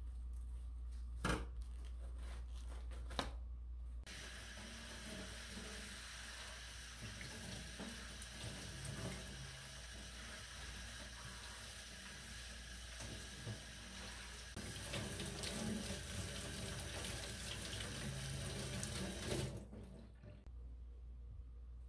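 A couple of light knocks, then a kitchen tap starts about four seconds in and runs into a stainless steel sink as lettuce leaves are rinsed in a mesh strainer under the stream. The splashing changes and grows a little louder about two-thirds through, and the water shuts off shortly before the end.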